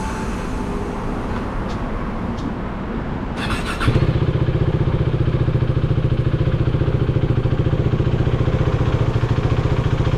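KTM Duke 390 single-cylinder engine started: a brief starter whir about three and a half seconds in, then the engine catches and idles with a steady, fast pulsing beat.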